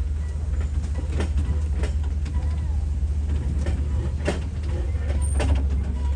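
Open-air safari truck driving over a rough track: a steady low rumble of engine and road, with scattered knocks and rattles from the vehicle.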